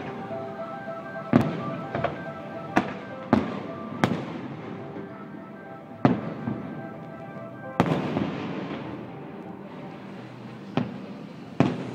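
Aerial fireworks shells bursting over the water, about nine sharp bangs at irregular intervals, each trailing off in a rolling echo. They come thickest in the first four seconds, and the loudest is just over a second in.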